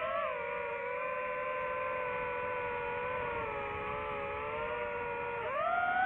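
DJI FPV drone's motors and propellers whining at a steady pitch that sags slightly, then climbs sharply near the end as the throttle is opened.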